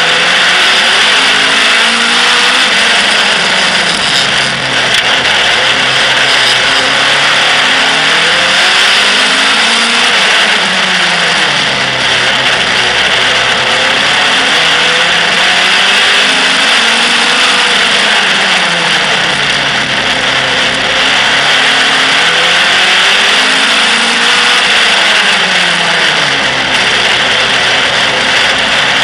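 Outlaw stock car engine at racing speed, heard from onboard. Its revs climb along each straight and drop off into each bend, over and over about every six and a half seconds, under a steady rush of wind on the microphone.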